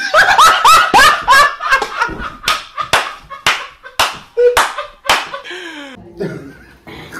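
A man laughing loudly in high, rising whoops, then a run of about nine sharp smacks, roughly two a second, that stops about five seconds in.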